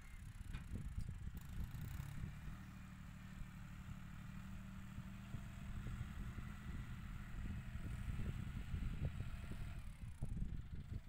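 John Deere 5045 tractor's diesel engine running steadily at a distance, heard under wind rumbling and buffeting on the microphone.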